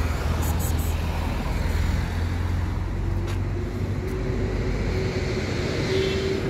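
Steady rumble of road traffic, with an engine hum that comes in about halfway through and rises slightly in pitch.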